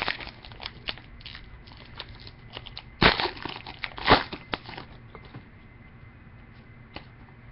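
Trading cards and a foil pack wrapper being handled: small clicks and slides of card stock, with two louder crinkling rustles about three and four seconds in.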